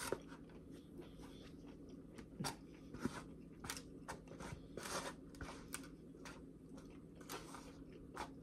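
A person chewing crunchy raw vegetables (a beet and cucumber salad) close to the microphone: irregular wet crunches and bites, a fraction of a second to about a second apart, over a faint steady hum.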